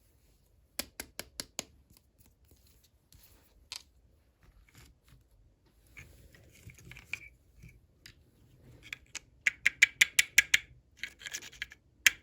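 Small plastic toy packaging and pieces being handled and opened: sharp clicks and scratching, building near the end into a quick run of rattling clicks, several a second.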